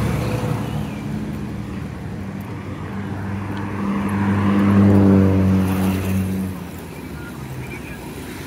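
Road traffic: a car drives past with its engine hum, loudest about five seconds in and dropping in pitch as it goes by, with a motorcycle passing at the start.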